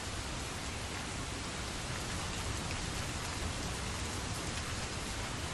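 Steady rain falling on grass and ground: an even, dense patter with no let-up.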